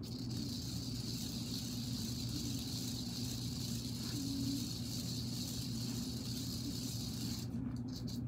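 Small battery-powered toy car running with a steady hissing whir over a low hum; the hiss cuts off about seven and a half seconds in.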